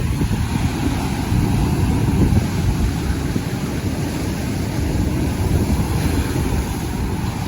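Sea and wind: a steady low rumble of waves with wind buffeting the microphone.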